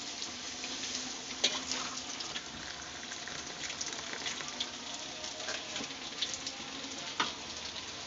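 Water at the boil hissing and crackling in an aluminium pot on a gas stove, with scattered small pops, and poured from the pot into a glass partway through.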